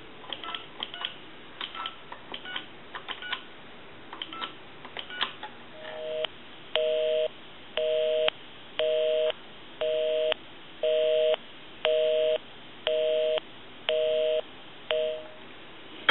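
Number being dialed on a wooden wall telephone's rotary dial, heard as a string of short, irregular clicks on the line for about five seconds. A telephone busy signal follows: a low two-tone beep pulsing about once a second, about ten times, before it cuts off when the phone is hung up.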